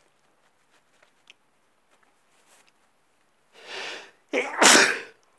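A man sneezing: a breathy in-breath about three and a half seconds in, then one loud, explosive sneeze near the end.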